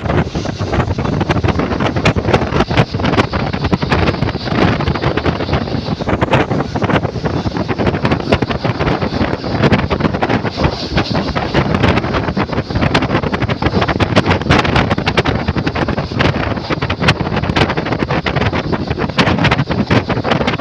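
Wind buffeting the microphone over the running noise of a moving passenger train, with rapid rattling clicks throughout.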